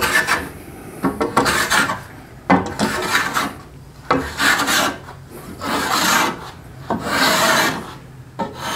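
Stanley 6-inch block plane taking thin shavings along a softwood paddle shaft: about seven even push strokes, each under a second long with a short pause between.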